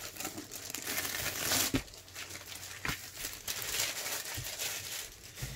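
Clear plastic wrapping crinkling as it is handled and pulled off a rolled diamond painting canvas, with a couple of sharper crackles near the middle.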